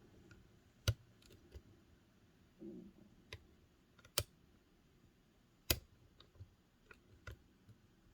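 Sharp metallic clicks, spaced irregularly, from a Peterson Gem lock pick and tension wrench working the pin stack of an Ace Hardware 44mm laminated padlock with security pins. Three clicks stand out as louder, about one, four and five and a half seconds in.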